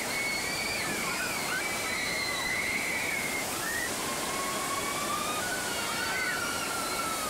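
Water rushing down a log flume chute in a steady wash as a log boat of riders slides down it, with drawn-out high shrieks gliding over the rush.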